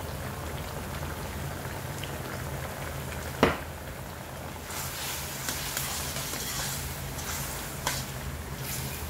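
Cabbage and broth simmering in a stainless steel wok, bubbling steadily over a low hum. There is a single sharp clink about three and a half seconds in. From about halfway through, a metal ladle stirs through the liquid and the hiss grows brighter.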